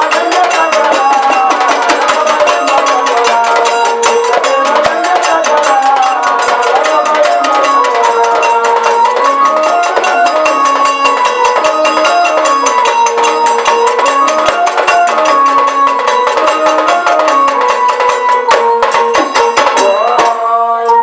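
Gondhal devotional music: a fast, even percussion beat under a melody that rises and falls, over a steady held drone.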